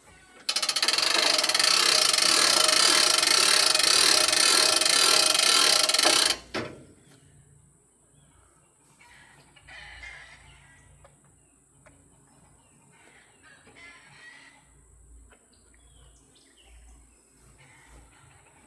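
Aerosol lubricant spray can hissing in one loud, steady blast of about six seconds, then cutting off. Chickens cluck faintly afterwards.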